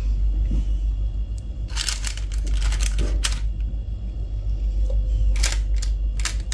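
Short clicks and light rustles as thin sabudana vada patties are laid into an air fryer basket lined with a paper liner, in small clusters about two, three and five and a half seconds in, over a steady low hum.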